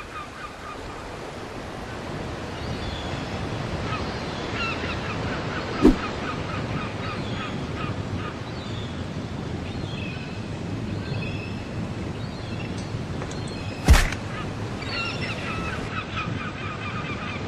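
Beach ambience of waves washing in, with birds, likely gulls, calling in short repeated cries. Two sharp thuds cut through, one about six seconds in and a louder one about fourteen seconds in, a heavy foot stomping down into the sand.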